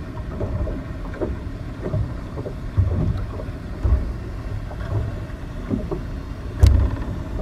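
Wind buffeting the microphone in uneven gusts, with water splashing on the harbour and a sharp knock about two-thirds of the way through.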